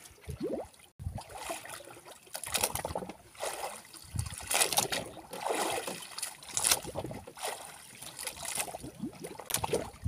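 Water lapping and sloshing against the hull of a small wooden fishing boat, in uneven splashy surges, with short scrapes and knocks as a handline is hauled in by hand.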